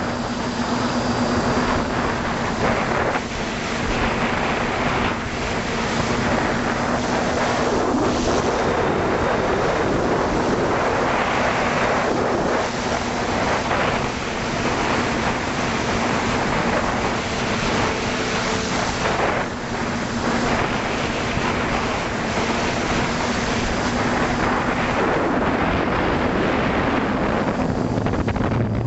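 A small FPV model aircraft's motor and propeller heard from its onboard camera in flight: a steady hum at one constant pitch under loud wind rush on the microphone that swells and eases.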